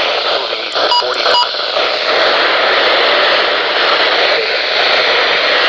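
Heavy static hiss from a weather-radio receiver on weak reception, any broadcast voice buried under the noise. Two short clicks come about a second in.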